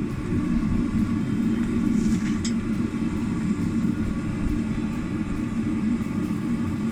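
Gas forge burner running at raised pressure, a steady rumbling roar of burning gas as the forge heats up.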